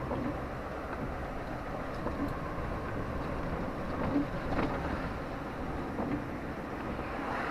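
Steady running noise of a moving vehicle, with a few faint knocks.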